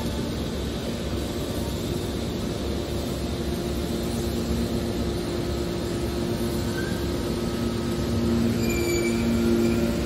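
Hydraulic scrap-metal baler running, a steady hum with a rough low rumble that grows louder about eight seconds in. A few brief high squeaks come near the end.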